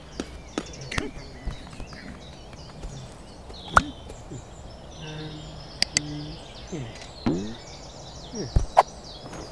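Cartoon soundtrack: sharp clicks and short pitch-sliding sound effects over a steady background of birds chirping, with low murmured character voices.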